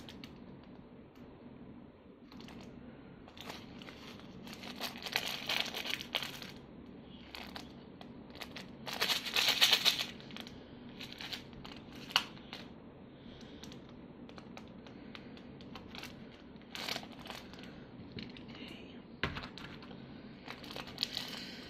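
Plastic bag of diamond-painting drills crinkling as it is handled, with light clicks, in scattered short bursts; the loudest rustle comes about nine to ten seconds in.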